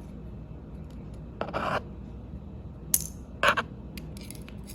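Small metal parts of an Abus 83/45 padlock clicking and scraping as its cylinder is gutted with tools: a short scrape about one and a half seconds in, a sharp click near three seconds, then another short scrape and a few light ticks.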